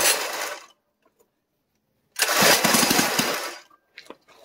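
The Coleman CT100U mini bike's 3 HP OHV single-cylinder engine is being pull-started with its recoil cord. Each pull brings a burst of engine noise lasting about a second that dies away without the engine keeping running: twice here, one burst ending within the first second and a full one about two seconds in. It is drawing through a long homemade pipe-fitting intake manifold with the supercharger boost bypassed, and something is not right with the start.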